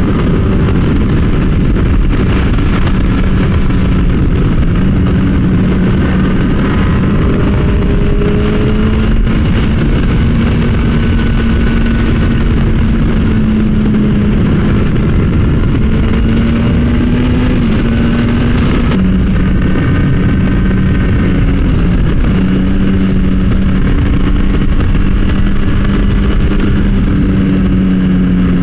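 Kawasaki ZX-10R's inline-four engine running at a steady cruise, its pitch holding nearly level with small rises and dips, under a heavy rush of wind on the helmet microphone.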